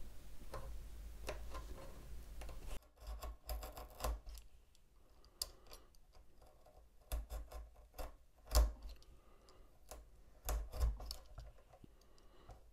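Craft knife cutting off the ends of thin wooden planks (4 mm by 0.5 mm strips) along a marked taper line. It makes quiet, irregular scraping clicks and small crackles, with one sharper snap about two thirds of the way through.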